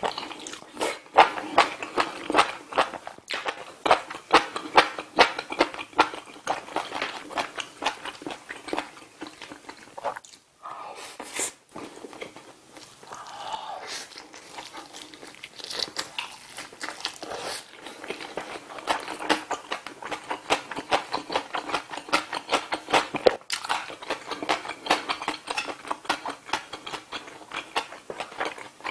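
Close-miked eating sounds: dense, rapid wet chewing and mouth clicks from soft tofu stew and a leaf-wrapped bite of grilled saury, with two brief lulls a little past halfway through.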